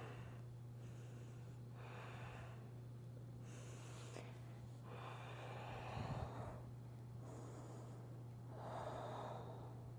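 A person's faint, slow breathing during a seated forward fold: several soft breaths in and out, heard over a steady low electrical hum.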